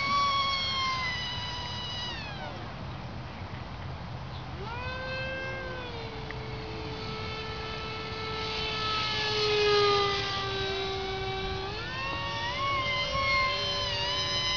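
Radio-controlled model jet flying overhead, its engine a high whine that keeps changing pitch: sliding down about two seconds in, holding lower, then rising again about twelve seconds in.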